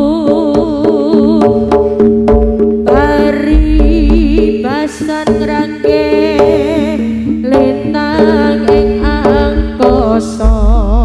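Live Javanese jaranan music: hand drums beating a steady pattern, low drum thuds, a steady held low note and a wavering melody over it.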